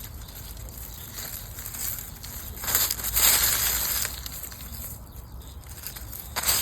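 Rustling and crunching, as of dry litter being disturbed, with a louder burst lasting about a second near the middle.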